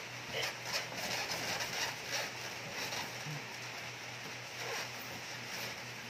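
Large cardboard carton scraping, rustling and knocking as it is slid up off a washing machine, a run of irregular taps and scuffs that thins out in the second half. A steady low hum runs underneath.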